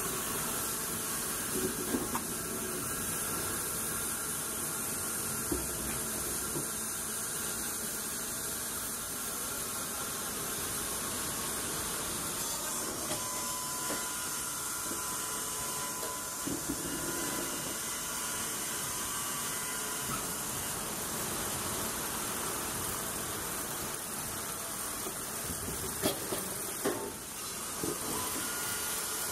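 Baker resaw mill line running: a steady, even machine noise from its electric saw, hydraulic pump, conveyors and rollers, with a few short knocks.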